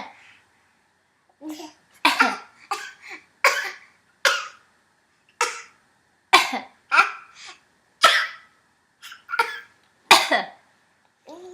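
A baby giving a long series of short pretend coughs, put on for play rather than from illness, one to three at a time with brief pauses between them.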